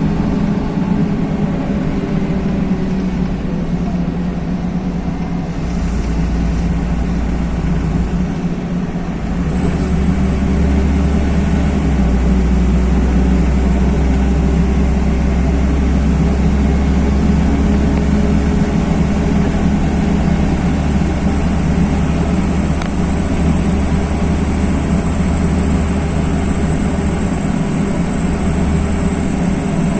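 A LiAZ-5292.21 city bus driving, heard from inside the passenger cabin: steady engine and road rumble. The rumble grows heavier about ten seconds in, and a faint, high, steady whine joins it from then on.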